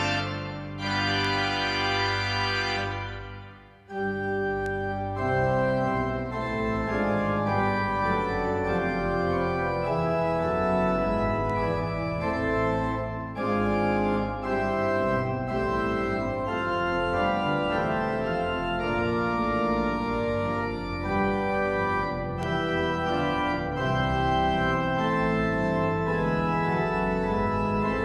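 Church organ playing full held chords. The chord is cut off about three seconds in, and after a brief pause a new passage of moving chords starts about four seconds in and carries on steadily.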